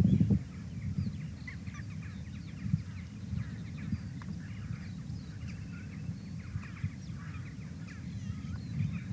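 Many birds calling at once: a dense run of short chirps and warbles over a steady low rumble of outdoor background noise.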